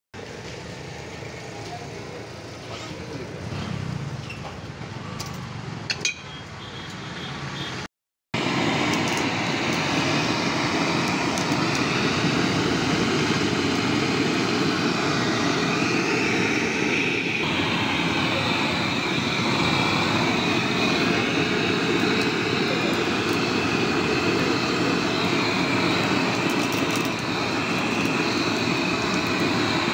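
Gas blowtorch burning with a loud, steady rush, singeing a country chicken's skin and feathers. It starts about eight seconds in, after quieter street background with a single click.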